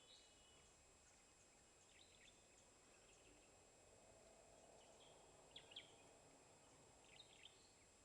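Near-silent outdoor ambience with a faint steady hiss and a few brief bird chirps every couple of seconds, the clearest pair about five and a half seconds in.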